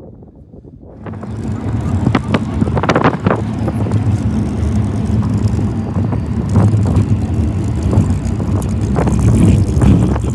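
Wind on the microphone for about a second, then a safari vehicle driving over a rough desert gravel track, heard from inside: a steady engine drone with frequent rattles and knocks from the bumpy ground, and wind noise.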